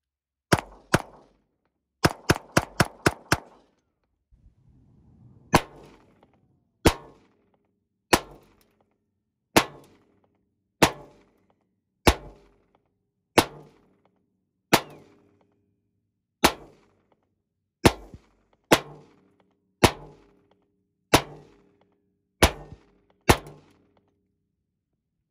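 Gunshots: two shots, then a rapid string of about six in a second, then single shots spaced a second or so apart.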